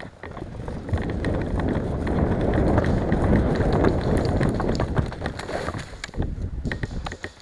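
Running footsteps and jostling gear, with wind buffeting the microphone; the clicks thin out and the rumble drops near the end.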